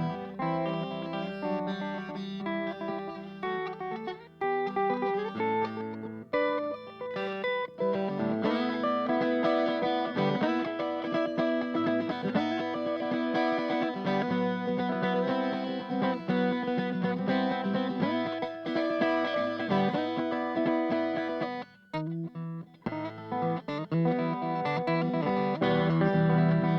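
Guitar playing an instrumental break in a song, a run of changing notes over sustained chords with an effects-laden tone, dropping out briefly near the end before coming back in.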